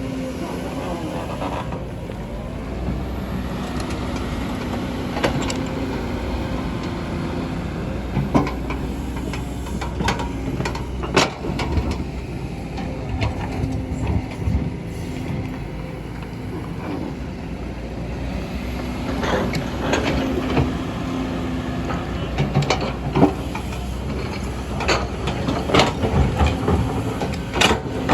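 Kobelco hydraulic excavators digging into a hillside: diesel engine running steadily with a low hum, with scattered sharp metallic clanks and knocks that come thicker near the end.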